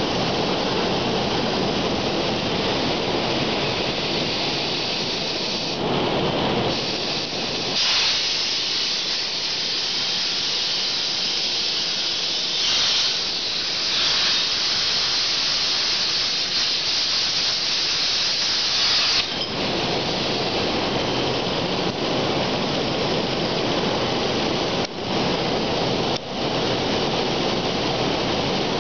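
CNC air plasma torch cutting steel plate: a steady hiss of the air plasma arc. The hiss turns higher and sharper from about eight seconds in until about nineteen seconds in.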